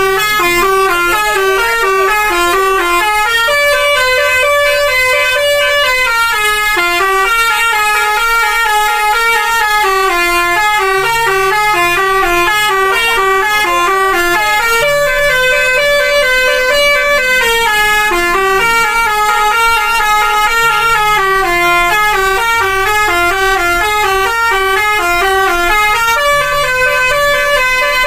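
Telolet bus horn, a set of tuned horns, playing a fast snake-charmer-style melody. It steps between notes several times a second and repeats the same short phrase every few seconds without a break.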